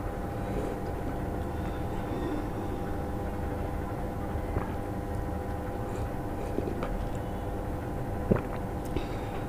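Faint sips and swallows of rice water drunk straight from a ceramic bowl, over a steady electrical hum, with a short soft knock near the end.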